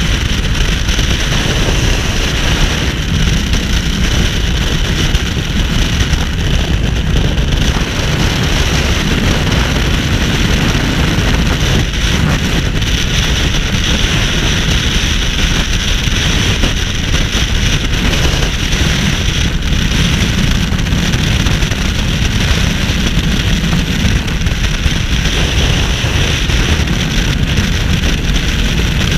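Freefall wind rushing over an action camera's microphone: a loud, steady rush of air with no break.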